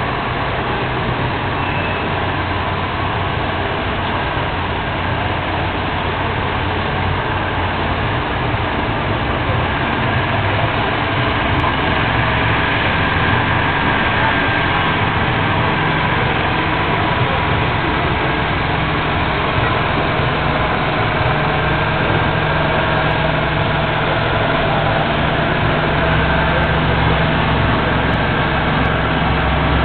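Steady, dense outdoor background noise with a low engine-like hum running under it, growing slightly louder toward the end.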